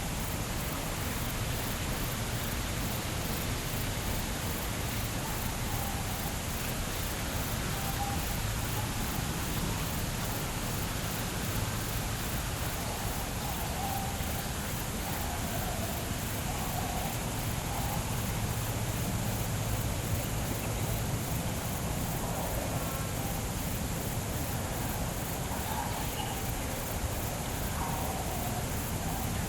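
Steady outdoor hiss with a low rumble underneath, and faint, scattered swallow chirps from about six seconds in.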